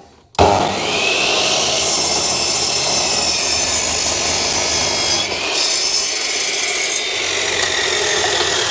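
A power tool cutting or shaping a piece of wood: it starts abruptly about half a second in and runs without a break, a faint motor tone under the noise of the wood being worked.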